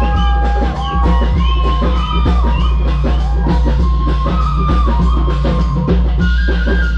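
Live band music: a bamboo flute plays a melody that slides between notes, over hand drums and a deep steady bass.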